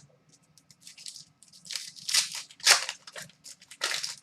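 Trading cards being handled: a string of short papery slides and flicks as cards are slid off the stack and flipped, the loudest about two, two and a half and four seconds in.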